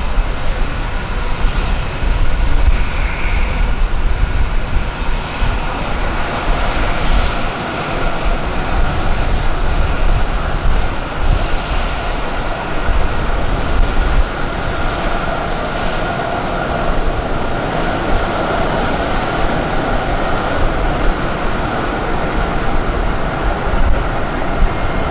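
Airliner engines running loud and steady: a broad rushing noise with a faint high whine held throughout.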